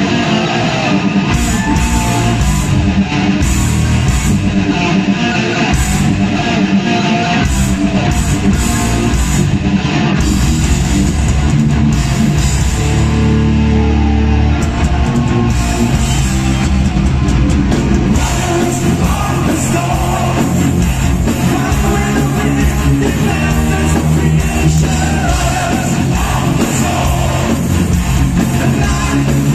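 A power metal band playing live and loud through a big PA: distorted electric guitars, bass and drums, with sung vocals at times.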